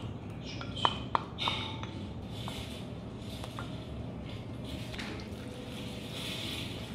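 Thick chili sauce being poured and scraped from a small bowl onto cold noodles in a glass mixing bowl, with two sharp clicks about a second in and a few lighter ticks. Near the end, hands begin squishing the noodles through the sauce.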